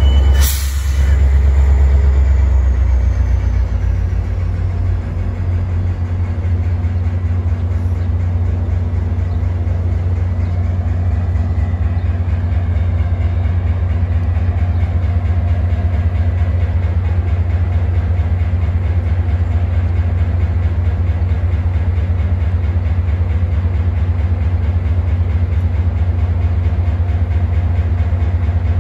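Metra MP36PH-3S diesel locomotive standing at a stop with its engine running: a deep, steady drone. A short sharp clunk sounds about half a second in.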